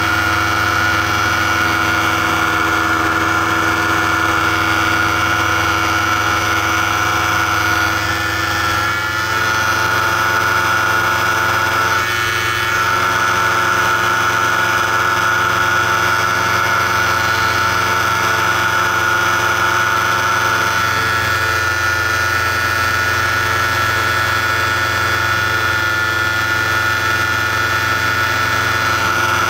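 Paramotor engine and propeller running steadily in flight, loud and close, with a slight change in pitch about nine seconds in.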